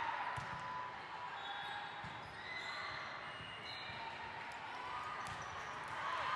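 Volleyballs bouncing and being struck on a hard indoor court, a few separate thuds, amid a steady background hubbub.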